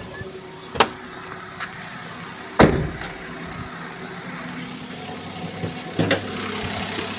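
Small car engine idling steadily, with a few sharp clicks and one loud thump about two and a half seconds in.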